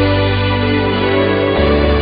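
Slow background music of sustained organ chords; the chord changes, with a lower bass note coming in, about one and a half seconds in.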